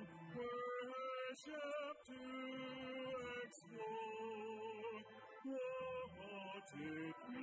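A hymn sung in slow, held notes that step from one pitch to the next, over sustained lower accompanying notes.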